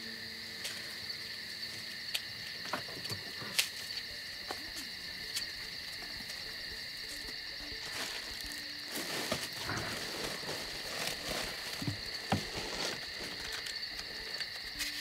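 Steady, high-pitched chorus of calling frogs and insects. Over it come scattered sharp clicks, the loudest about three and a half seconds in, and a stretch of rustling noise about nine to eleven seconds in.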